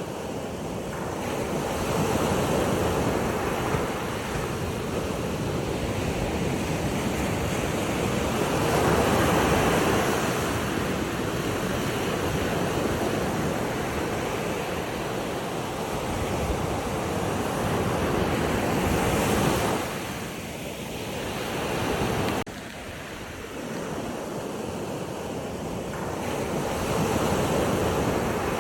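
Ocean surf washing in swells that rise and ease every few seconds, with wind on the microphone. The level drops suddenly about 22 seconds in.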